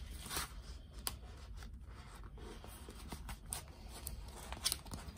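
Photocards and plastic sleeves of a photocard binder being handled: soft sliding and rustling of card against plastic, with a few short scrapes.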